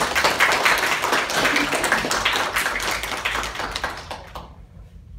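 A small group applauding, many hands clapping quickly and unevenly; the applause dies away about four seconds in.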